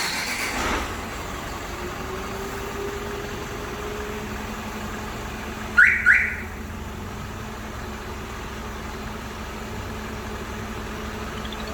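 Hyundai All New Mighty truck's diesel engine, remote-started by the alarm, catching at the start and settling into a steady idle. Two quick, loud rising chirps from the alarm come about six seconds in.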